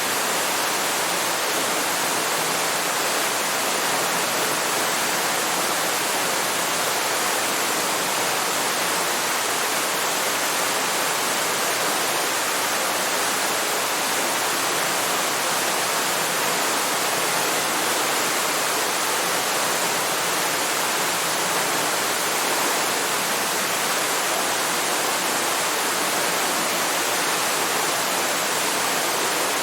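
Waterfall: water falling and splashing in a steady, unbroken rush, mostly high-pitched with little deep rumble.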